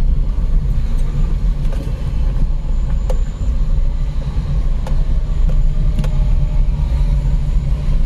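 Steady low rumble of a car being driven, its engine and tyres heard from inside the cabin, with a few faint clicks.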